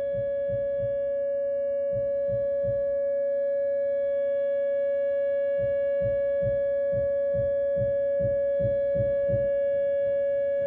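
Whelen WPS 2909 electronic outdoor warning siren sounding a steady alert tone: one held pitch with overtones that does not rise or fall. Under it are runs of muffled low thumps, about two to three a second, from hammering in the basement.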